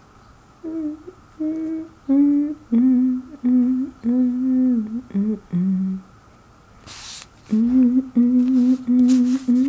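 A person humming a slow tune in separate held notes, pausing briefly near the middle, with a short scratchy noise about seven seconds in before the humming resumes.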